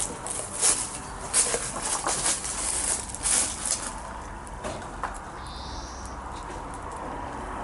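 Footsteps and rustling as someone pushes through brambles and undergrowth, leaves and twigs brushing and crackling. It is busiest in the first half and thins out after.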